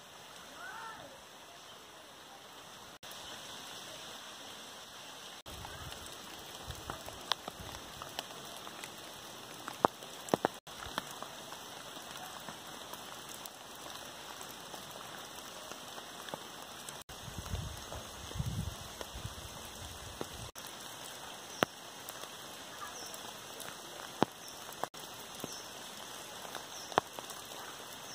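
Steady monsoon rain falling on leaves and ground, with scattered sharp taps of single large drops close by. A low rumble comes in twice, most strongly a little past the middle.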